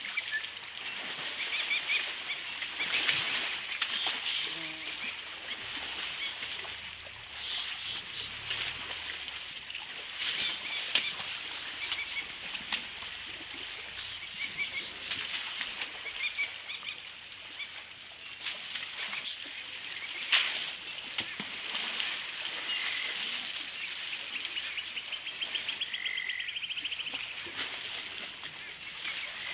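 African elephants splashing and wallowing in shallow muddy water, with scattered short bird calls and a brief trill near the end.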